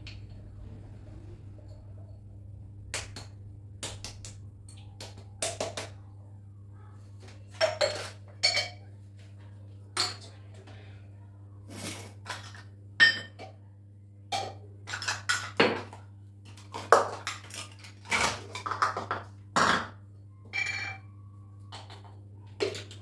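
Kitchen dishes (small steel bowls and containers) clinking and knocking against each other and the counter as they are handled and set down: irregular clatter, some clinks ringing briefly.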